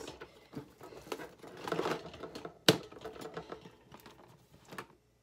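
Light clicking and clattering of metal canning lids and a storage container being handled, with a brief rustle and one sharp knock about two and a half seconds in.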